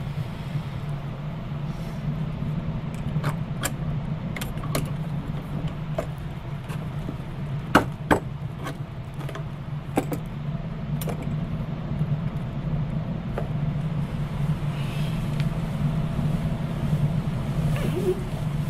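An old wooden door being handled by hand: a scattered series of sharp clicks and knocks of wood and latch, the loudest two about eight seconds in. A steady low hum sits under them.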